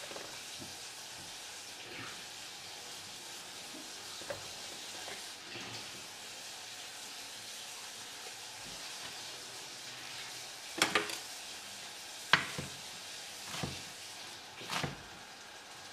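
Tomatoes frying in a pan with a steady sizzle. In the last third, a knife chops amaranth leaves on a wooden cutting board: a handful of sharp knocks about a second apart, the loudest sounds here.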